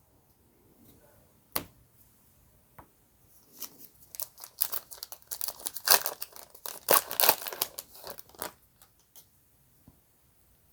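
A trading-card pack wrapper being torn open and crinkled, in a dense crackling run of several seconds, after a single sharp click.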